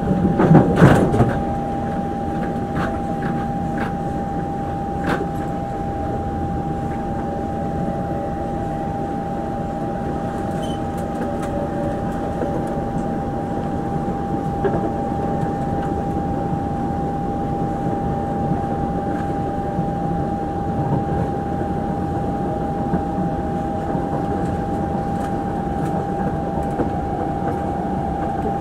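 Singapore MRT train carriage running between stations: a steady rumble of wheels on rails with a constant whine over it. There is a louder knock about a second in.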